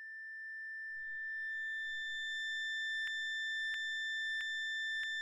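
A steady high-pitched ringing tone, added as a sound effect, that slowly grows louder. From about three seconds in it is broken by sharp ticks, about three every two seconds.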